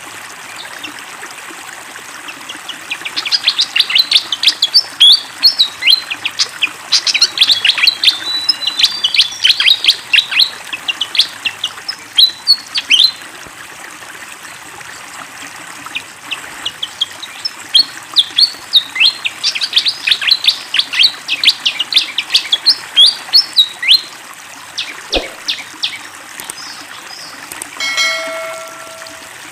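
Fantail flycatcher singing two long bursts of rapid, sharp, twittering notes, over a steady rush of flowing water. A click and a brief low tone come near the end.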